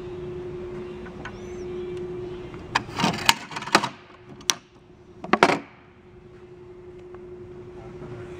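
Stainless steel telescoping boarding ladder handled and folded up, giving a series of sharp metal clacks and short sliding rattles in the middle, with one more loud clack near the end of the run. A steady low hum runs underneath.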